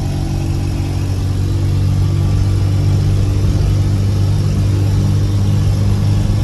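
Inside the cab of a 1987 Dodge Ram 50: its carbureted 2.6-litre four-cylinder engine runs steadily under way at about 40 mph, with road and tyre noise. The engine note grows a little louder about two seconds in.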